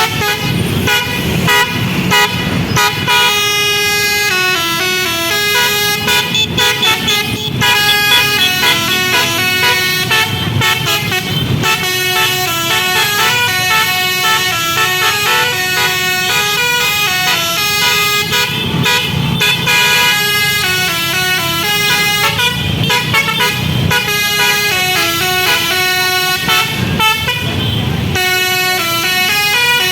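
Bus telolet horn by Basuri, a multi-tone horn playing a continuous tune of short notes that step up and down in pitch. Under it a low rumble swells several times.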